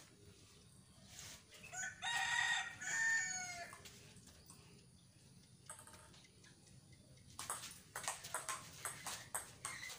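A rooster crows about two seconds in: one long call that ends on a falling note. From near the end come quick sharp clicks of a table tennis ball striking the bats and table in a rally.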